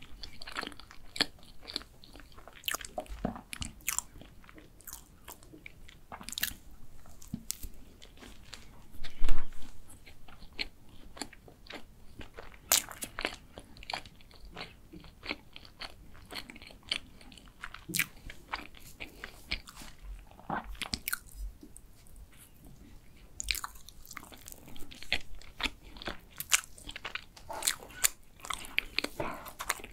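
Close-miked chewing and wet mouth sounds of someone eating chocolate sponge cake with whipped cream, a run of small clicks and smacks with one louder burst about nine seconds in. Near the end a wooden spoon cuts into the cake.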